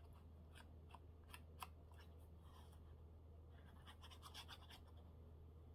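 Faint rustling, scratching and light ticks of paper being handled and pressed down, in two short clusters over a low steady hum.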